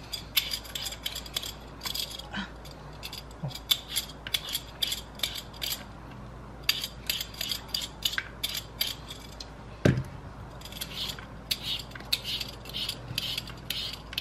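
Vegetable peeler scraping the skin off potatoes in quick, repeated strokes, with a single louder knock about ten seconds in.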